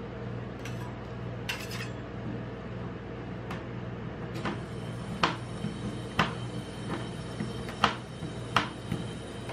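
Two metal spatulas chopping a chocolate bar on the steel plate of a rolled ice cream cold plate: sharp metallic clacks about once a second through the second half, with a few lighter taps earlier, over a steady low hum.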